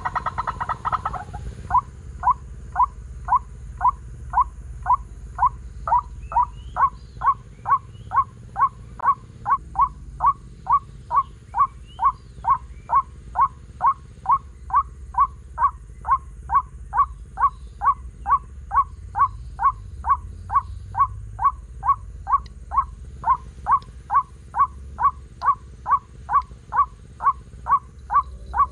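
White-breasted waterhen call (ruak-ruak) played through a homemade speaker as a lure, repeated in a very even rhythm of about two short calls a second after a brief denser run of calling at the start.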